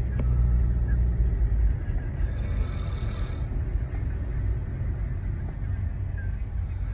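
A person snoring, rasping breaths recurring about every four seconds over a steady low rumble that is heavier for the first couple of seconds.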